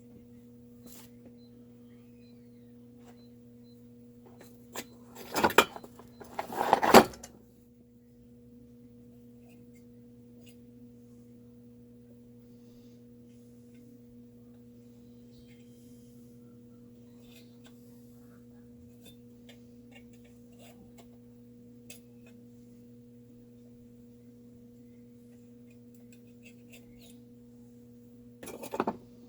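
Clattering and knocking of chainsaw parts and tools being handled during reassembly of a Stihl 036, in two loud bursts about five and seven seconds in and again near the end. A steady low hum runs underneath.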